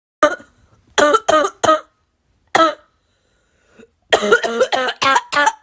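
A person coughing in fits: one cough, a quick run of three, another single cough, then a fast run of seven or eight coughs near the end.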